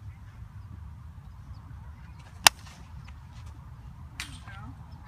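A softball bat striking a pitched softball with a single sharp crack about halfway through. A fainter knock follows near the end.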